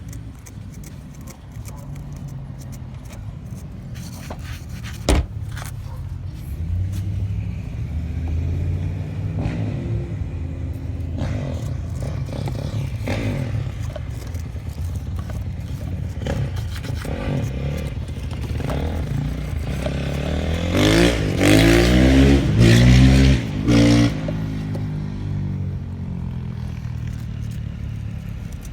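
Irregular scraping of a brush scrubbing corrosion off car battery terminals, over a steady vehicle engine hum, with a sharp click about five seconds in. The loudest sound is an engine rising and falling in pitch for a few seconds near the end.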